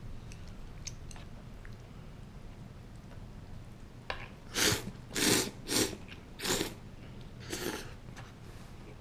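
A man slurping miso ramen noodles off chopsticks: five short, loud slurps in quick succession about halfway through, after a few faint clicks. Chewing follows the slurps.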